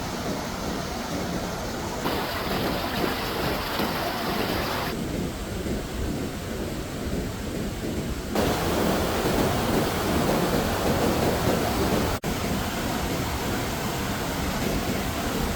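Heavy rushing water, most likely floodwater and heavy rain, as a steady loud noise with a deep rumble. It changes character abruptly several times.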